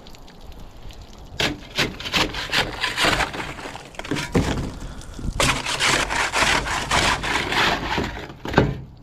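Rough scraping and cracking noises in two long stretches, with sharp knocks about a second and a half in and a loud knock near the end.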